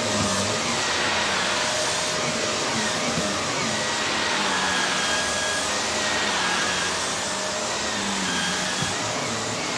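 Shark upright vacuum cleaner running steadily while it is pushed back and forth over a shag rug and carpet.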